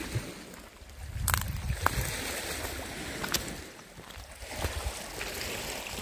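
Wind gusting on the microphone over small waves lapping at the shore, with scattered crunches and clicks of footsteps on stones and dry reed debris.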